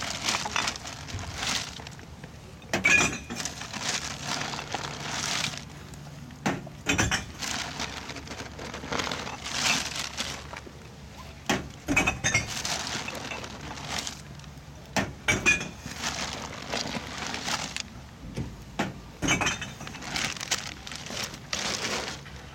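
Shoes crunching and scraping on gritty, debris-strewn asphalt, in irregular bursts a second or two apart.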